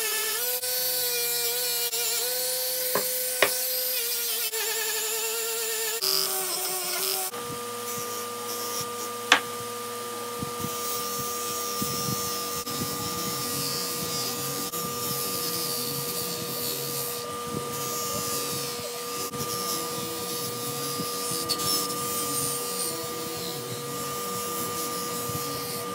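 Dremel rotary tool whining at high speed as it works an ornate brass lamp part, its pitch wavering as it bears on the metal. After about seven seconds a 6-inch bench buffer's motor runs with a steady hum while brass lamp parts are rubbed against its buffing wheel. A few sharp ticks are heard along the way.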